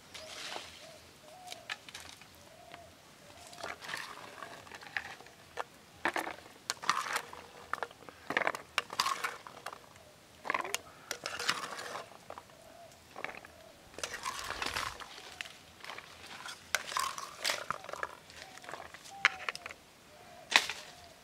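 Large seeds being handled and dropped one after another into a plastic bowl of water, giving irregular clicks, knocks and small splashes. A dove coos faintly at the start and again near the end.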